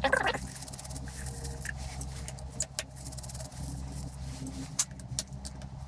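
A screwdriver working the screws of a small cover on a metal lathe's cross slide: a few light metallic clicks and scrapes, spaced out, over a steady low hum.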